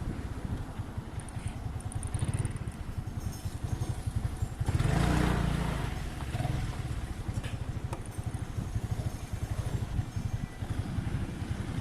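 Motor scooter engine running under way, with rapid low firing pulses and wind rushing over the microphone; a louder swell of rushing noise about five seconds in.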